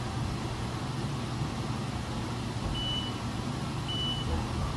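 Haas VF-2SS CNC vertical mill humming steadily while its spindle probe runs an X-center probing cycle, with two short high electronic beeps about a second apart, starting a little under three seconds in.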